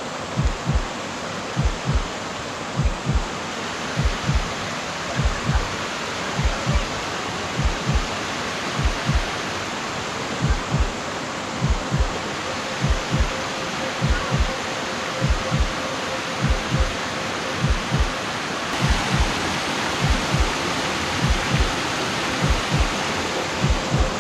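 Steady rushing of flowing creek water with a low heartbeat-like double thump repeating about every 1.2 seconds.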